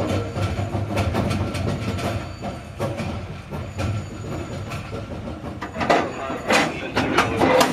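Railyard turntable rotating with a passenger railcar on its bridge. A steady low hum runs under irregular metallic clicks and clanks, with a few louder clanks near the end.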